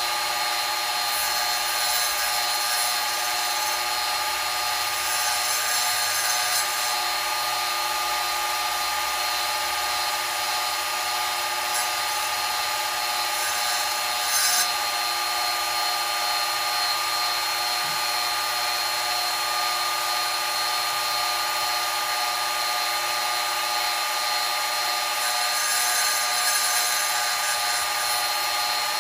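Wet tile saw running steadily while its blade grinds the uneven cut rim of a glass bottle level, with several brief louder grinding spells as the glass is pressed against the blade.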